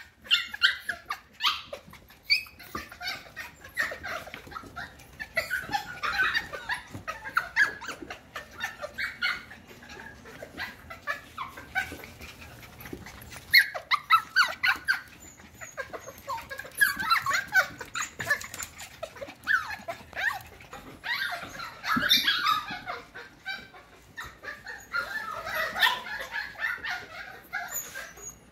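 F1 cockapoo puppies (cocker spaniel × miniature poodle) making small, high play noises in short bursts as they play together, with claws clicking on a hardwood floor.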